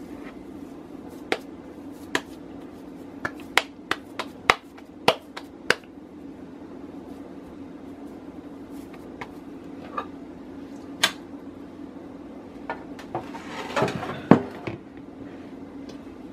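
Hands patting and slapping a lump of mashed-potato dough flat between the palms: a quick run of sharp pats in the first few seconds, then scattered ones. A short clattering scrape comes near the end. A steady low hum runs underneath.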